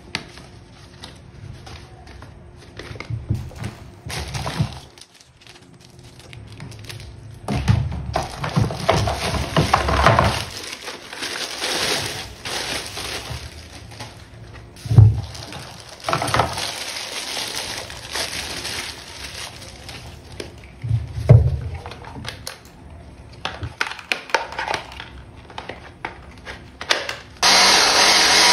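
A pressure washer's packaging being opened and its parts handled: rustling and crackling with scattered knocks and thuds. Near the end a steady whirring noise starts.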